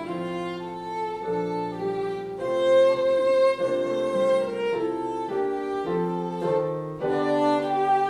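Violin playing a melody of held notes, with a lower accompaniment sounding beneath it.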